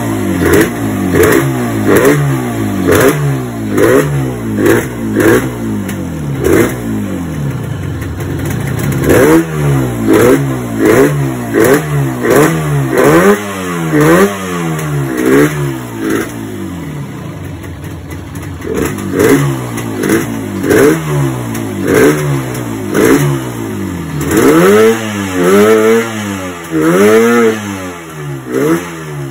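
Yamaha RD350's air-cooled two-stroke parallel-twin engine, freshly started, being blipped on the throttle over and over. The revs rise and fall about once a second, settle briefly about two-thirds of the way through, then pick up again and drop back near the end.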